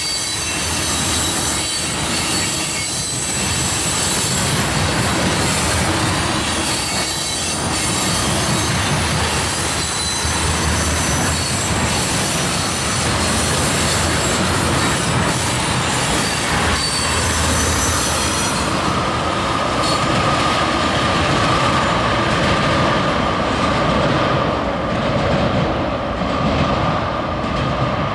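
Loaded ethanol tank cars of a freight train rolling past, a steady rumble and clatter of steel wheels on rail with thin high-pitched wheel squeal. About two-thirds of the way through the high hiss fades as the cars move away, leaving a steady lower squeal.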